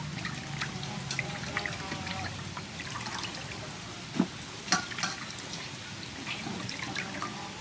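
Raw gizzards being washed by hand in a stainless steel bowl of water: irregular splashing, sloshing and dripping, with two louder, sharper sounds a little past halfway.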